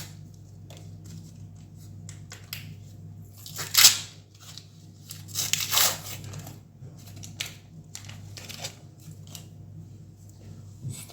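Paper sticker-pack wrapper being torn open and crinkled by hand, with the stickers inside handled. There are short rips, the loudest about four seconds in and again around six seconds, among small rustles and clicks over a low steady hum.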